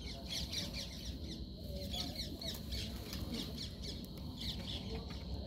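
Birds chirping rapidly: thin, high, squeaky notes, each falling quickly in pitch, several a second, over a low steady rumble.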